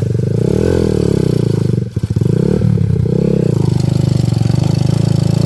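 Honda Megapro single-cylinder four-stroke engine in a home-built KLX-style trail motorcycle, running and revving up and down. The engine note dips briefly about two seconds in, then picks up again.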